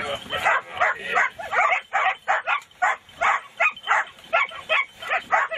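A dog barking over and over in a quick, even series, about three barks a second.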